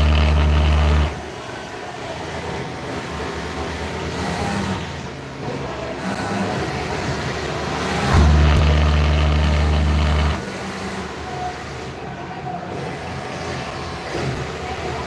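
Industrial sewing machine running at full speed in two steady runs of stitching, one stopping about a second in and another lasting about two seconds from roughly eight seconds in. A steady background din of other machines fills the gaps.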